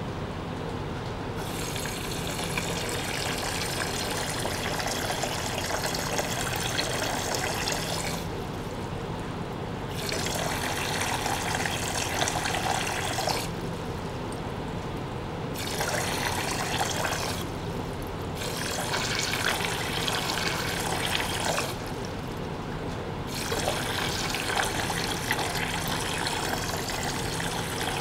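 Water from a small circulation pump splashing and bubbling into a plastic tank, over a steady low hum. The splashing breaks off for a second or two about five times and then resumes.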